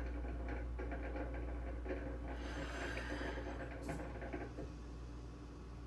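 Soft crackles and rustles of crumbled ground beef being sprinkled by hand onto crisp chips on a plate, over a steady low hum.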